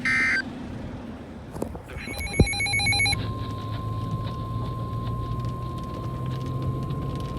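NOAA Weather Radio alert tones through a radio receiver. A short burst of data tones ends one message, then about two seconds in comes a second of rapid electronic beeping. From about three seconds in, the steady single-pitch 1050 Hz warning alarm tone holds, announcing a new severe thunderstorm warning.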